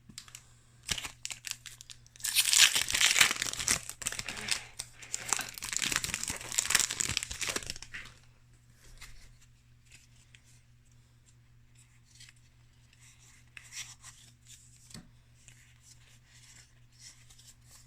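Foil booster pack wrapper being torn open and crinkled for several seconds, loud and crackly. After that come faint rustles and clicks as the cards are handled.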